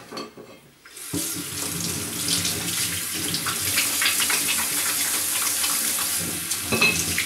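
Water tap turned on about a second in, running and splashing into a sink, with a short clink near the end.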